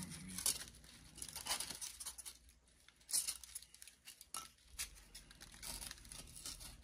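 Crinkling and rustling of a gloved hand pressing and smoothing plaster-covered material onto a model-railway rock face, with a few sharp crackles in the first three seconds.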